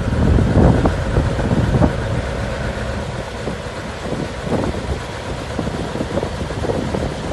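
Tractor diesel engine running, with an uneven low rumble from wind buffeting the microphone.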